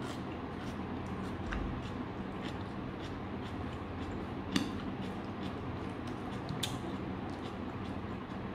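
Eating sounds: a mouthful of rice and stir-fried sweet potato leaves being chewed, with a few light clicks of a metal spoon against the dishes. The sharpest clicks come about four and a half seconds in and again near seven seconds, over a steady low hum.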